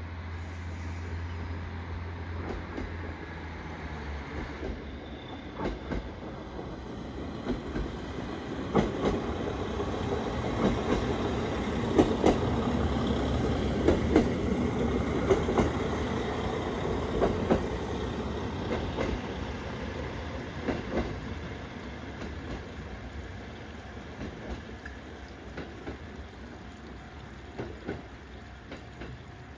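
JR Hokkaido KiHa 40 diesel railcar passing, its engine running and its wheels clacking over the rail joints. The sound builds to its loudest in the middle, with sharp irregular clacks, then fades away.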